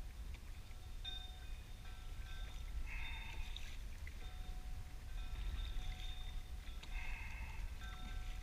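Wind and choppy water around a kayak, a steady low rumble. Faint bell-like ringing tones sound about every four seconds over it.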